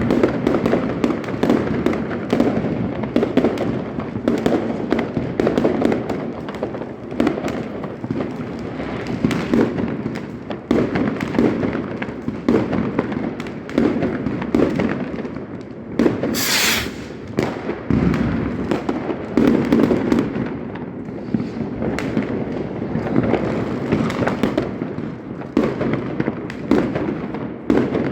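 Many fireworks and firecrackers going off together in a dense, continuous barrage of bangs and crackling. There is a brief, sharp high hiss about sixteen seconds in.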